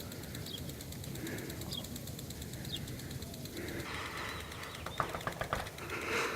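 Outdoor ambience with a few short, high bird chirps in the first half, then a rustling noise and several sharp clicks in the second half.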